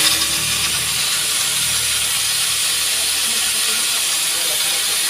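A steady, loud hiss, mostly high-pitched, that starts abruptly just before and holds level throughout.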